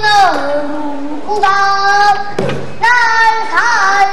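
A young girl singing pansori in long held notes that bend and slide, phrase by phrase, in a strained, ornamented voice. A few strokes of the buk barrel drum accompany her.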